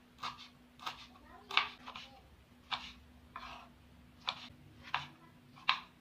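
Kitchen knife slicing tomatoes on a wooden cutting board: short, sharp knocks of the blade striking the board, about one every two-thirds of a second, over a faint steady hum.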